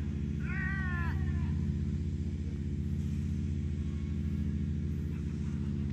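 A steady low machine hum made of several held tones, with a brief voice sound about half a second in.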